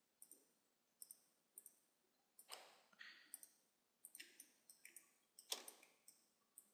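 Faint computer mouse clicks, many of them at an uneven pace as the brush is dabbed across the model. About two and a half and five and a half seconds in there are two louder, longer noises.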